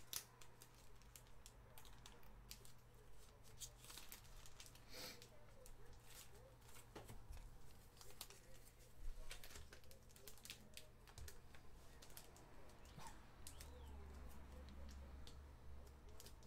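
Faint, irregular clicks and taps from hands working at a desk, over a low steady electrical hum.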